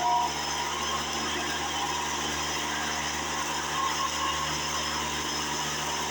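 Vacuum cleaner running steadily, its motor's hum and rush of air holding even.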